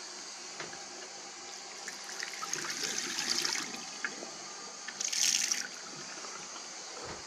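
Water from a washbasin tap running and splashing into the plughole, with two louder spells of splashing: a longer one about two to three and a half seconds in and a short one about five seconds in.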